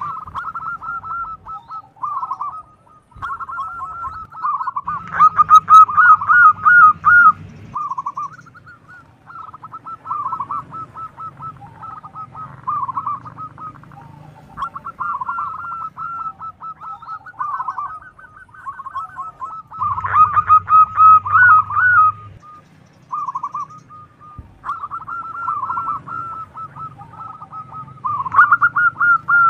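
Zebra dove (perkutut) cooing: runs of quick, repeated notes with short pauses between them. The phrases are loudest about five seconds in and again about twenty seconds in.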